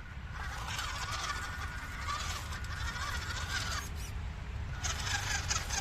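Small electric motor and gearbox of a WPL 1/16 RC trail truck whining in two spells of throttle, the pitch rising and falling, with a short pause between them over a steady low rumble.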